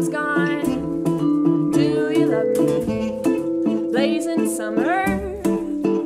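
A woman singing over a strummed small-bodied acoustic guitar and a plucked upright double bass, with a light tapping beat, in a live acoustic band performance.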